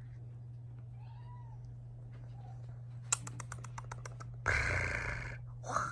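British shorthair kitten meowing: one loud, roughly second-long meow about four and a half seconds in and a short one just before the end, after a quick run of small clicks.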